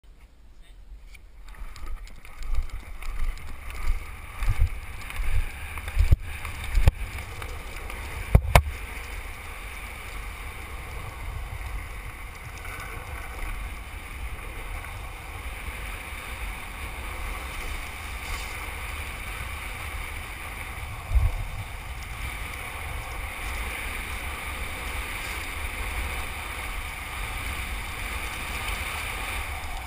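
Wind rushing over the microphone of a fast-moving longboard ride, with the rolling rumble of the wheels on asphalt: a steady rush that grows slightly louder as the board gathers speed. In the first several seconds there are uneven low thumps and three sharp knocks.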